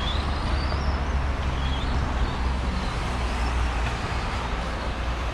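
Electric RC race cars' motors whining, their pitch rising and falling as they speed up and slow down, over a steady low rumble.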